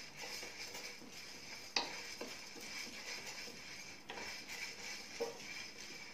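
Wooden spatula stirring and scraping washed rice around a nonstick frying pan as it dry-roasts, over a faint steady hiss. A few sharp knocks of the spatula on the pan, the loudest about two seconds in.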